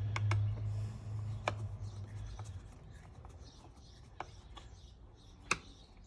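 Small metal parts of a car wiper motor being handled: scattered sharp clicks and light rubbing. Under the first two and a half seconds a low steady hum runs, then stops.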